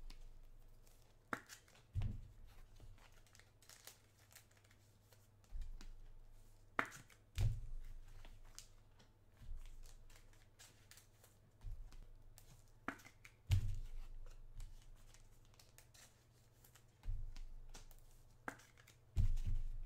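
Trading-card packaging being handled: rustling and tearing of wrappers, with scattered sharp clicks and about eight soft thumps on the table.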